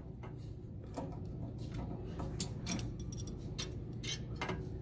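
Irregular light metallic clicks and clinks as a screw, spacer and Allen wrench are handled and fitted while a new brake is lined up on the cart's motor, over a low steady hum.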